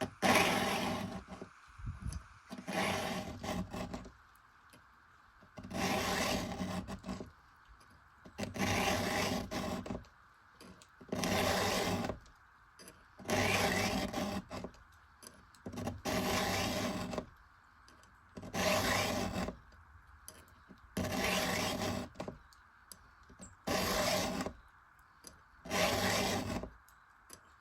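Hand file pushed across the steel cutter teeth of a chainsaw ripping chain, sharpening it freehand: about a dozen separate scraping strokes, each about a second long, mostly one every two and a half seconds.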